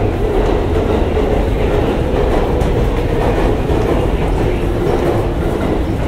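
JR Yamanote Line electric commuter train running alongside the platform at low speed: a steady, loud rumble of wheels and motors with a light rail clatter.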